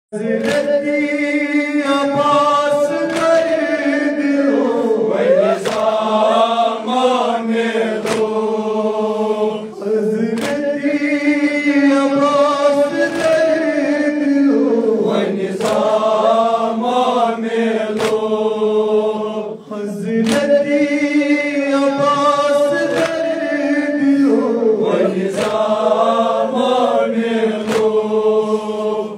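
A Kashmiri noha, a Shia lament, sung by a male reciter on a microphone with a group of men chanting in unison, in repeated phrases of about five seconds. Regular sharp slaps of hands on chests (matam) keep time through the singing.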